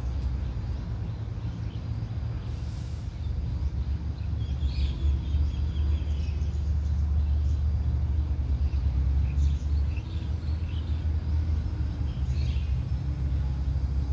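Heavy diesel engine running with a steady low rumble that swells louder about four seconds in and holds there.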